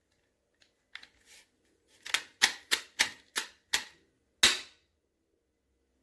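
A run of sharp clicks or knocks: a few faint ones, then six loud ones in quick succession, about three a second, and a last single one a moment later.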